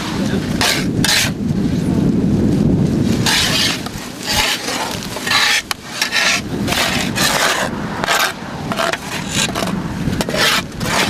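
Several steel shovels digging into and scraping through wet soil, a quick irregular run of scrapes and gritty thuds as the earth is shovelled in.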